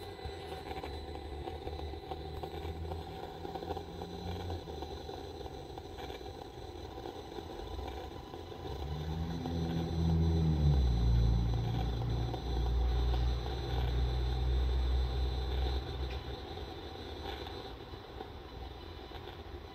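A low mechanical drone with faint steady high tones over it. About nine seconds in, a deeper drone swells, its pitch dropping, stays loud for about six seconds, then fades back.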